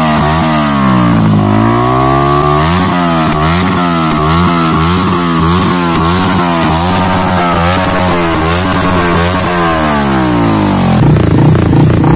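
Yamaha R15 V3's 155 cc single-cylinder engine revving through an aftermarket Akrapovic slip-on exhaust, the throttle blipped again and again so the note rises and falls in quick succession. About a second before the end the sound switches to a different motorcycle's exhaust.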